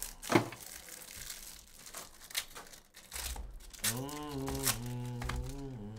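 Foil trading-card pack wrapper crinkling and tearing as it is ripped open by hand, with a few sharp crackles. About four seconds in, held musical notes come in, stepping from one pitch to the next.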